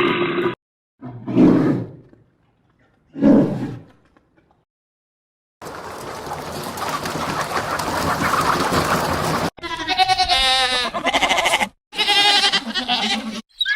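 A string of separate animal sound clips with short silences between them. The last two are wavering bleats.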